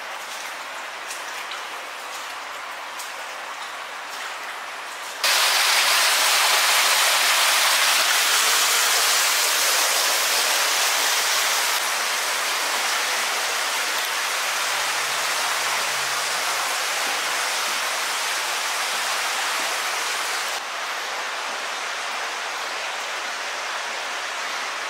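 Steady rushing noise of water in a narrow concrete tunnel. It jumps abruptly louder about five seconds in and eases down in two steps later on.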